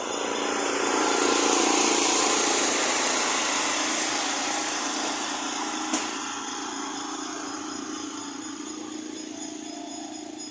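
Train passing and pulling away: a steady rumble and hiss that swells over the first two seconds, then slowly fades, with a single sharp click about six seconds in.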